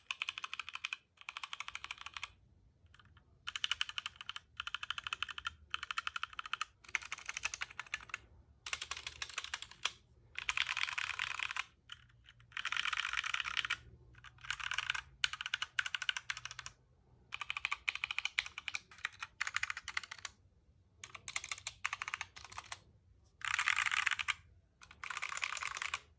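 Typing on HyperX Alloy Origins mechanical keyboards fitted with HyperX Aqua tactile and HyperX Red linear switches: bursts of rapid key clicks, each a second or two long, broken by short pauses.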